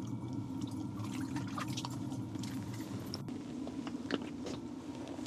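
Small clicks, rustles and wet squishes of a small walleye being lifted out of the ice hole and handled, over a steady low hum.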